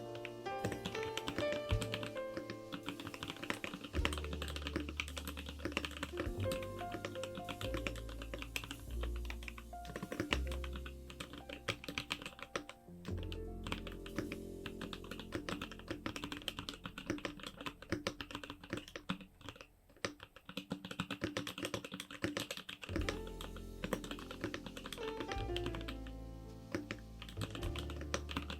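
Continuous typing on a KBDFans Tofu65 mechanical keyboard with Kailh Icecream switches: rapid, irregular keystroke clacks, over background music with a bass line.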